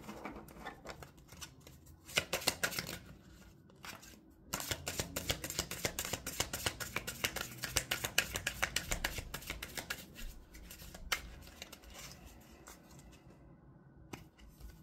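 A deck of tarot cards being shuffled by hand: quick runs of crisp card snaps and slides, the longest lasting several seconds, then thinning out to a few scattered clicks near the end.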